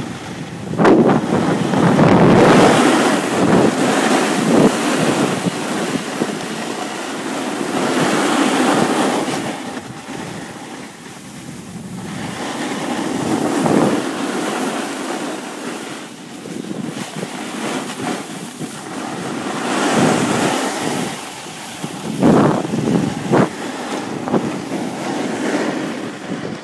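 Wind rushing over the microphone and a snowboard sliding and scraping on snow during a downhill run, swelling and fading every few seconds.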